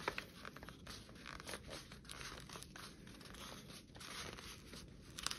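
Faint rustling and crinkling of paper being handled, with scattered small ticks and a couple of sharper clicks near the start and the end.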